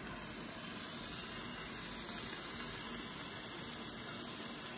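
Steady hiss from a Ninja Foodi indoor grill with hot grilled chicken on its grate.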